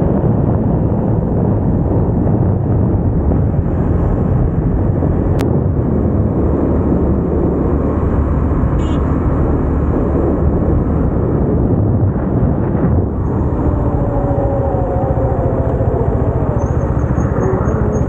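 KTM motorcycle riding along the road, its engine note under heavy wind rush on the rider's microphone, easing off as the bike slows.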